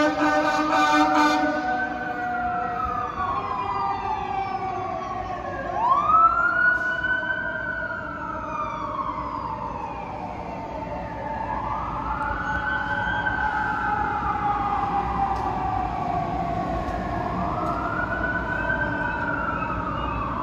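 Fire truck siren wailing, its pitch rising and falling slowly about every five to six seconds, after a loud steady blaring tone in the first second.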